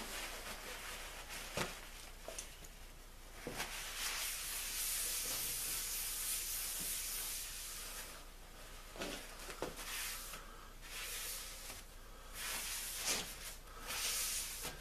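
Paper towel wiped and rubbed across the face of a granite-tile surface plate, a rough hissing scrub, cleaning off greasy silicon-carbide lapping compound with paint thinner. The rubbing runs steadily for a few seconds near the middle, then comes in shorter strokes, with a few light knocks in between.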